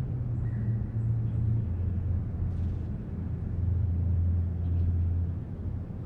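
Low, steady rumble with one faint, short bird call about half a second in.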